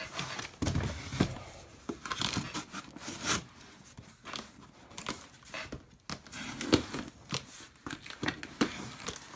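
Cardboard shipping box being opened with a utility knife: tape being slit and torn off, with cardboard scraping and rustling and a few short knocks.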